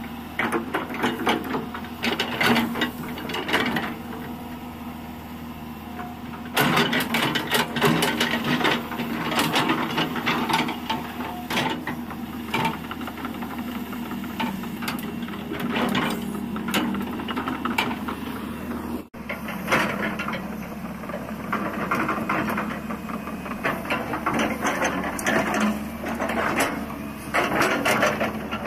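Tracked hydraulic excavator's diesel engine running steadily, with repeated metallic clanks and rattles from its bucket scraping dirt and its steel tracks as it moves. The clanking gets busier and louder after about six seconds.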